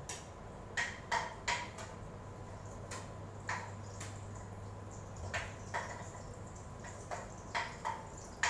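Metal cooking utensil clinking and scraping against a wok as garlic is stirred: about ten short, ringing clinks at irregular intervals, over a low steady hum.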